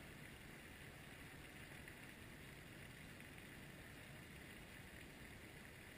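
Near silence: a faint, steady outdoor background hiss.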